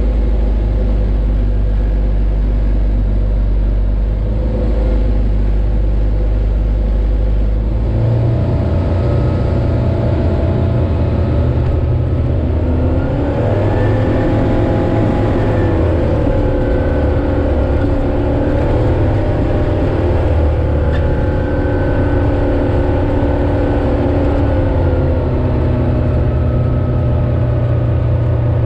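Light aircraft's propeller engine heard from inside the cockpit through a landing on a grass strip. A steady engine note with a heavy low rumble changes character about eight seconds in, as the plane settles onto the ground. A few seconds later the engine revs up, holds there, and eases off near the end as the plane taxis.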